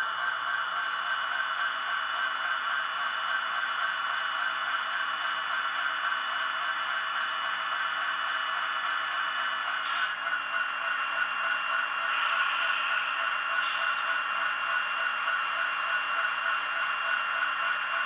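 HO scale model diesel locomotives running along the track, giving a steady whine and buzz with a faint hiss. The tone shifts slightly about halfway through.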